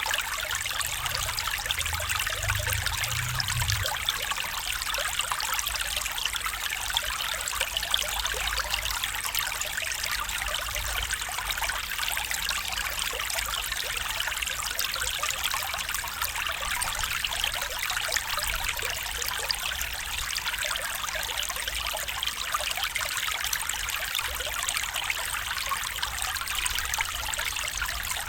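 A stream trickling steadily, an even splashing hiss with no breaks.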